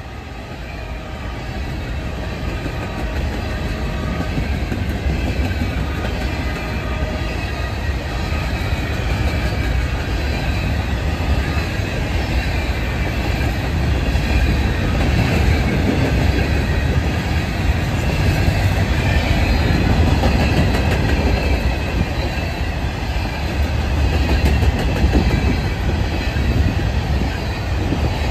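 A train rolling past on the tracks, its wheels rumbling and clacking over the rail with faint high-pitched squealing. It grows louder over the first few seconds as it draws near, then holds steady.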